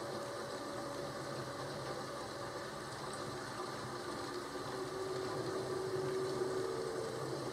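Rain and thunderstorm ambience: a steady rushing noise with a low rumble that grows a little louder about five seconds in.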